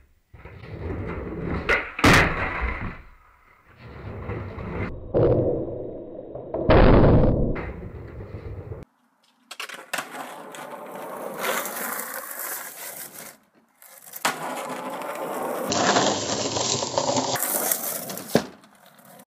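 Skateboard tricks on a wooden floor: sharp tail pops, clattering board landings and wheels rolling, with the loudest clatter about seven seconds in. After an abrupt cut, skateboard wheels roll steadily over rough asphalt.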